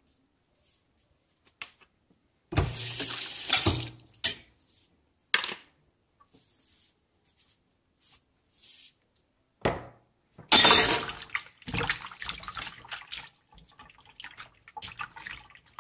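Water splashing in a stainless steel kitchen sink in two short bursts, then a hand swishing cut yam sticks around in a glass bowl of water.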